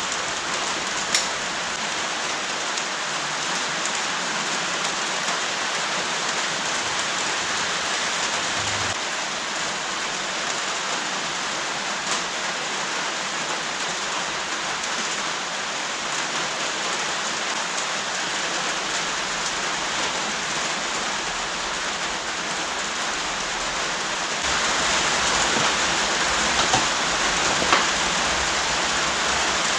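Steady heavy rain, growing louder about 24 seconds in, with a few faint clicks.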